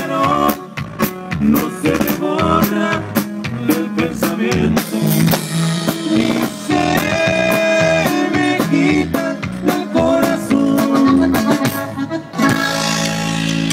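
Live band playing an instrumental passage with drum kit and guitar, no singing. Near the end the drum beat drops out, leaving a steady held sound.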